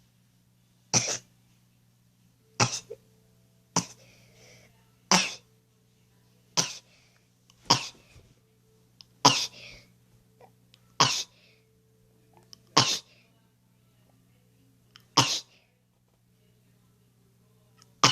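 A person sneezing over and over, about ten short sharp sneezes one to two seconds apart, set off by a cotton swab in the nostril.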